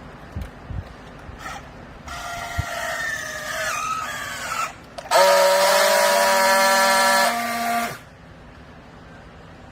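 Vertical rag baler's hydraulic press running under load: a wavering whine for a couple of seconds, then a louder steady whine about five seconds in that holds for nearly three seconds and cuts off.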